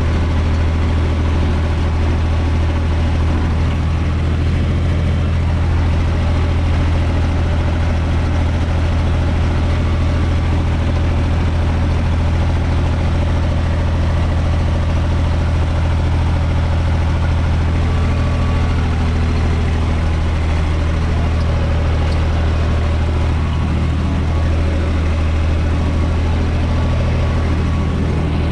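UTB 445 4x4 tractor's diesel engine running steadily at a constant speed, heard from inside the cab as a strong, even low drone, under load pulling a rotary tiller through garden soil.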